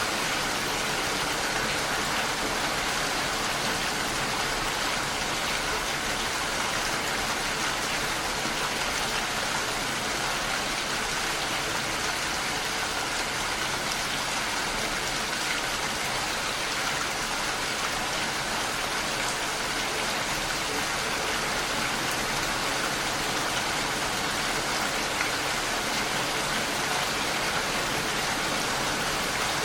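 Heavy rain falling steadily against a window pane, an even hiss with no breaks or changes.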